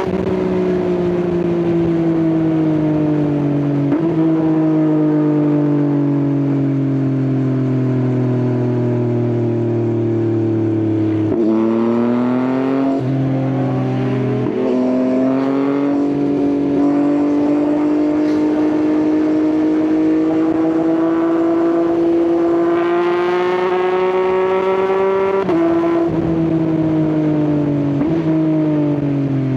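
Yamaha XSR900 inline-three motorcycle engine with an Akrapovič exhaust, under way. Its note falls as the bike slows, with gear changes stepping the pitch about 4, 11 to 15 seconds in. It then rises steadily under gentle acceleration, with further shifts near the end.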